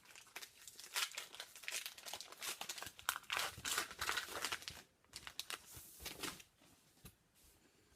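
Wrapper of a 2015-16 O-Pee-Chee hockey card pack being torn open and crinkled, a dense run of crackling and rustling for about six seconds, then fainter handling near the end.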